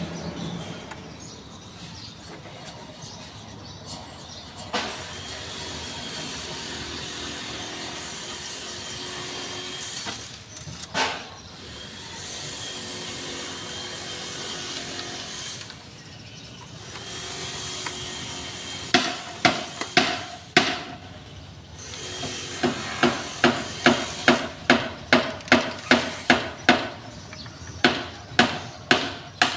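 Hand-tool work: a stretch of steady scraping or rubbing noise with an occasional knock, then, from about two-thirds of the way in, a run of sharp strikes, about two a second, like hammering.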